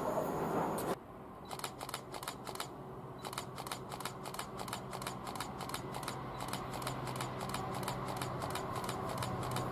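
For the first second a freight train's rumble as it passes, then a sudden cut to a quieter scene: a rapid, regular clicking, several clicks a second, over the faint hum of a distant approaching train, which slowly grows louder.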